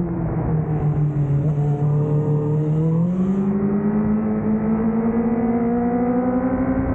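Honda CBR1000RR-R Fireblade's inline-four engine heard from on board at speed. It holds a steady low note through the corner, then rises steadily in pitch from about three seconds in as the bike drives out under throttle.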